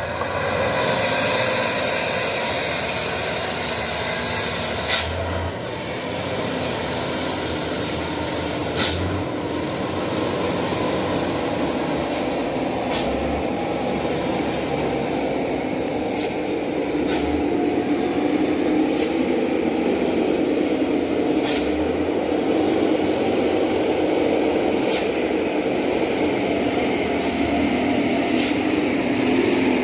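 Heavy dump truck engine running under a steady rushing noise, with sharp clicks every few seconds; the engine note rises near the end.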